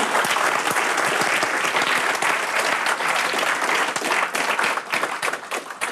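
Audience applauding: dense clapping that thins out into scattered claps near the end.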